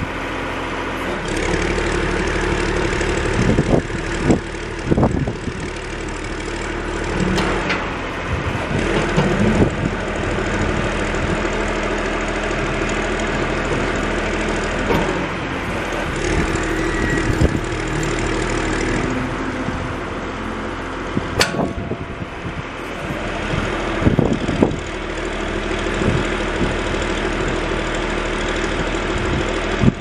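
John Deere 710D backhoe's diesel engine running under hydraulic load as the boom, dipper stick and bucket are cycled, its note changing a few times as functions are worked. Occasional short knocks are heard over it.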